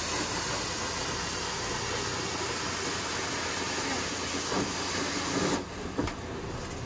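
Carpet-cleaning hot water extraction wand hissing steadily as it sucks air and water through the carpet, then cutting off sharply about five and a half seconds in.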